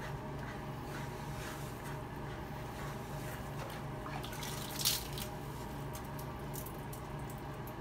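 Wet squishing and light splashing of soapy bathwater as a rubber bath brush scrubs a beagle's wet coat, with one brief, louder splash about five seconds in. A steady low hum runs underneath.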